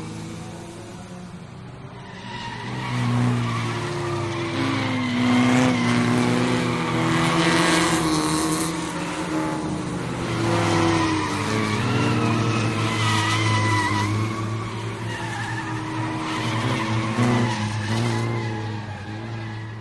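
Race car engines revving up and down, with tyres squealing at intervals; the sound swells and fades several times.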